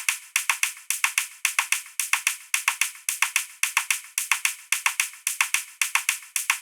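A high, dry ticking percussion loop from a cinematic trailer sound-effects pack: quick sharp clicks, about six a second, in a repeating grouped rhythm with no low end.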